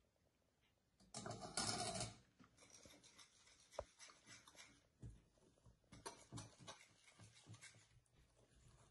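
Small wire whisk mixing eggs into flour in a glass bowl, with irregular scratchy strokes and light taps against the glass. The loudest burst of scraping comes about a second in.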